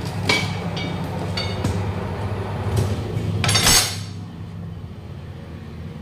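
Tyre-changer machine at work: a steady low hum with several sharp metallic clinks as the tyre and steel rim are handled on the turntable. About three and a half seconds in comes a short, loud hiss of air from the machine's pneumatics, and after it the hum is quieter.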